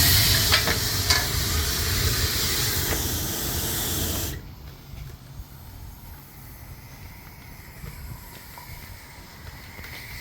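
Small steam boiler's blower, a steam jet that draws the fire, hissing hard with a few light clicks. It cuts off suddenly about four seconds in, leaving a faint hiss.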